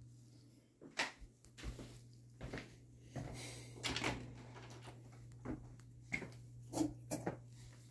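Footsteps and the knocks and rattles of a closet door being handled and opened, a string of short irregular thumps, over a steady low hum.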